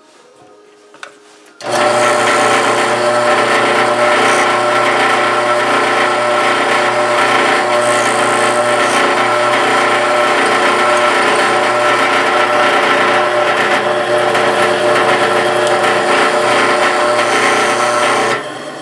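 A drill press switched on about two seconds in, its motor running steadily as it drills a mounting hole through a bracket, then switched off near the end and winding down.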